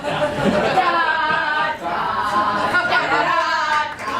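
Several performers singing together a cappella, with held notes in a few voices at once.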